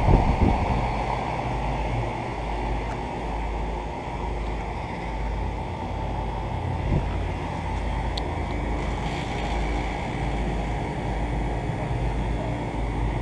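ICP central air conditioner condenser units running steadily, with their fans and compressors giving a constant hum. Wind buffets the microphone throughout, with a louder gust right at the start.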